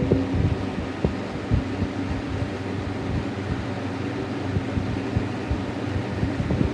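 Eskimo 12100 12-inch box fan running on high: a steady electric-motor hum under the rush of air, with irregular low thumps throughout.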